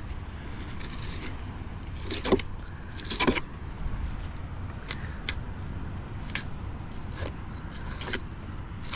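A sharp filleting knife cutting along a large tailor's backbone and rib bones: a scattered run of short, sharp scrapes and clicks as the blade works down the frame, over a steady low rumble.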